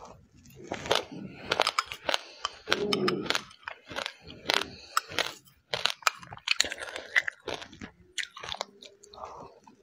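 Close-up crunching and chewing of a mouthful of crisp mixed seeds, with many quick, irregular crackles as the seeds break between the teeth.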